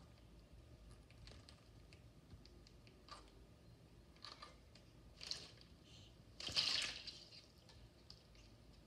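Young parrot bathing in a shallow glass bowl of water, splashing with its wings in a few short bursts, the loudest and longest about two-thirds of the way through.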